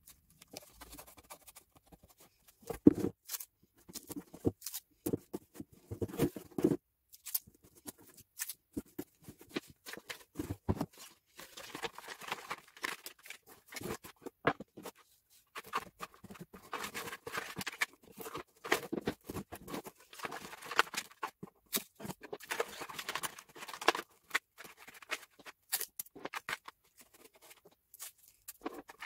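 Cardboard box being handled and taped by hand: irregular taps, knocks and scrapes of cardboard, with longer rasping stretches in the second half as masking tape is pulled off its roll and pressed on.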